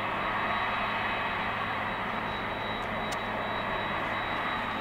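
Boeing 767-300's jet engines running at idle: a steady rushing noise with a thin, high whine held on one pitch.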